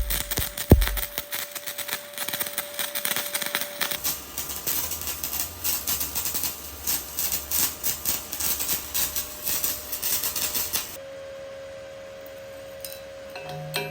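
Stick (SMAW) welding arc crackling irregularly as a bead is run, with a low thump in the first second. The arc stops about eleven seconds in, leaving a faint steady hum.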